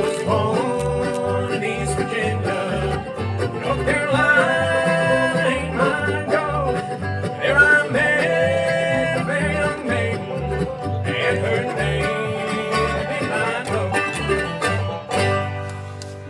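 Acoustic bluegrass band playing: banjo rolls and guitar over a plucked upright bass on a steady beat, the tune ending near the end.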